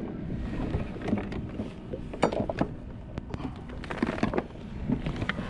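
Scattered light clicks and knocks of fishing tackle and kayak gear over a low rumble of wind and water, while a fish is reeled in on a bent spinning rod.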